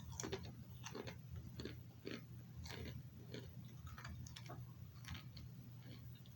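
Someone chewing a mouthful of crunchy baked pita chips close to the microphone, with irregular crunches two or three times a second.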